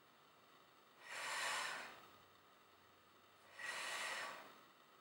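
A woman's audible breathing: two long breaths through the mouth, each about a second, a little over two seconds apart, pacing Pilates bridge lifts of the hips.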